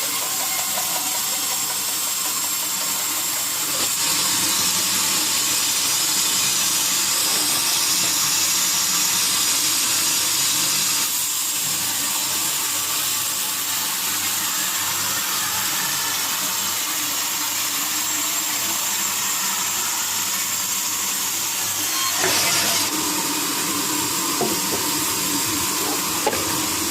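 Sawmill saw running through teak wood: a steady, hiss-like machine noise whose sound shifts about 4, 11 and 22 seconds in.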